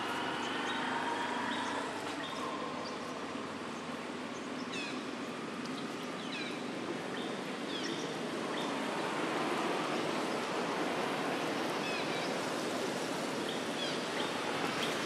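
Steady rushing outdoor background noise, with short high chirps of small birds now and then.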